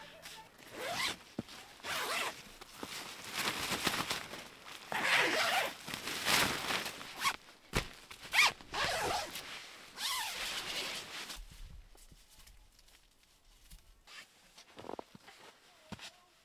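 Tent door zipper being pulled in a series of long rasping strokes, then going quiet for the last few seconds apart from a few light clicks.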